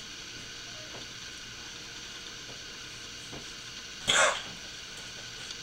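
A person sputtering out a sharp puff of breath about four seconds in, just after a handful of flour hits the face, over a steady faint hiss.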